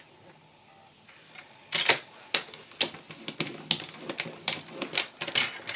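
Paper trimmer's blade carriage sliding down its rail to score cardstock, ticking in a quick uneven series of sharp clicks, about three a second. The clicks start about two seconds in after a quiet start.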